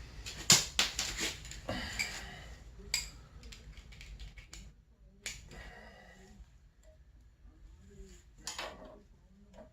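Scattered sharp clicks and light metal clinks of hand tools at work, several close together in the first three seconds, then one at about five seconds and another at about eight and a half seconds.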